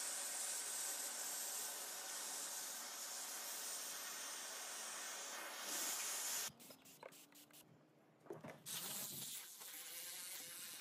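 Vacuum cleaner running as its nozzle sucks dust and grit out of a sliding window track. About six and a half seconds in it cuts off abruptly, leaving a few faint clicks, then a quieter steady noise starts up.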